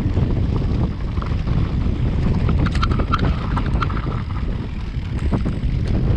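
Wind buffeting the microphone as a mountain bike rolls fast down a rough stony dirt track, with a steady low rumble. The bike clicks and clatters over stones, most busily between about two and a half and three and a half seconds in and again near the end.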